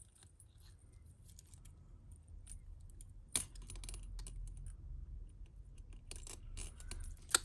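Costume jewellery clinking as it is handled and untangled: scattered small metallic clicks and jingles of chains and beads, with a sharper click about three seconds in and another near the end.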